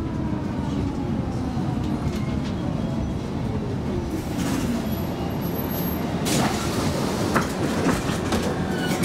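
Gothenburg M29 tram heard from inside, running and braking into a stop. Wheels rumble and click on the rails while the motor whine falls in pitch as it slows, and a burst of hiss comes about six seconds in.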